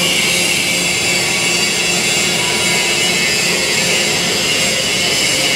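Twin-screw food extruder line running: a loud, steady mechanical noise of motors and machinery with a strong high hiss and a few faint steady hums beneath it.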